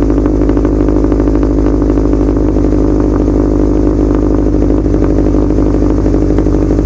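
2008 Subaru WRX STi's turbocharged 2.5-litre flat-four idling steadily after a cold start, running through aftermarket headers, up-pipe and a catless 3-inch turbo-back exhaust.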